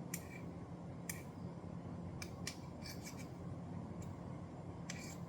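A spoon scraping and clicking against a plate in a series of faint, short strokes, stirring honey into ginger juice.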